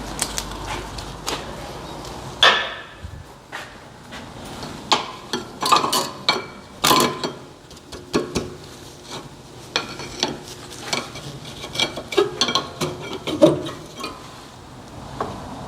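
Irregular metallic clinks and knocks of brake pads and tools being handled at a car's rear brake caliper, a few with a brief ring.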